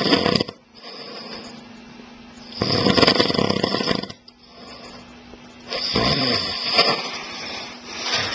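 A man snoring in his sleep: loud snores about every three seconds, with quieter breathing between them.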